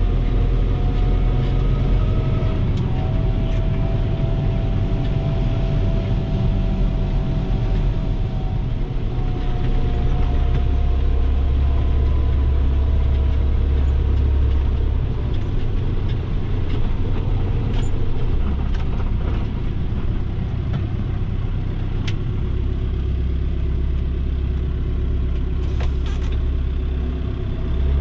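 Fendt Vario Farmer 410 tractor's diesel engine running steadily under load, a deep rumble with a faint whine over it that drifts slightly down in pitch in the first half.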